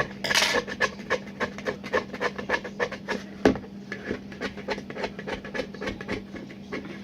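Rapid, irregular clicking and tapping, several light knocks a second, with a brief hiss about half a second in and one louder knock midway, over a steady low hum.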